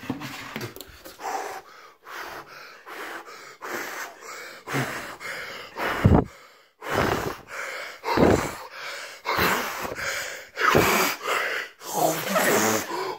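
A man gasping and breathing hard in a string of irregular short, noisy breaths, some of them voiced, as a disgusted reaction to the taste of homemade slime.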